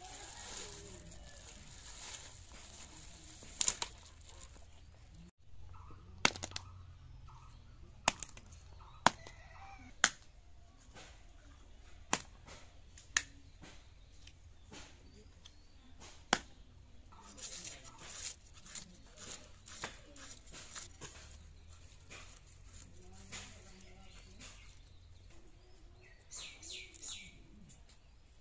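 Snakehead fish being handled and cleaned on a boti blade with ash: sharp single clicks and slaps a second or two apart, then a busier run of quick scraping and ticking in the last ten seconds as the fish is worked against the blade.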